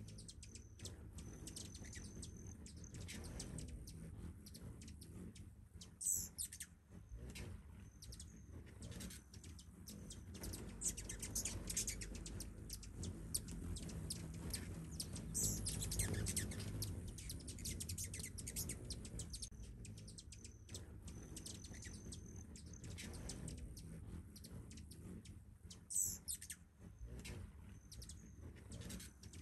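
Hummingbirds at nectar feeders, many short high chirps and chips, with three louder brief high sweeping sounds spread through. A low steady rumble sits underneath.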